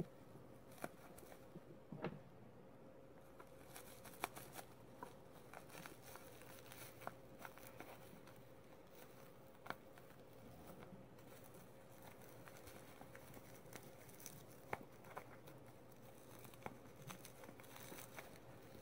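Faint crinkling and crackling of bubble wrap being handled and unwrapped by hand, in scattered small clicks and rustles.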